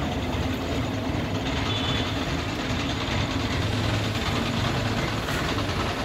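Mobile crane's diesel engine running steadily with a low, even drone while it holds a suspended load.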